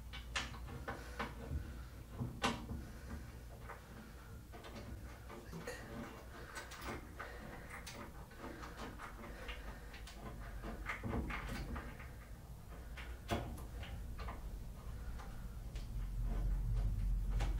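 Scattered small clicks and metallic taps as a hex head bolt with its washers is fitted by hand from beneath a bandsaw table, threading the bolt that secures the table to its trunnion.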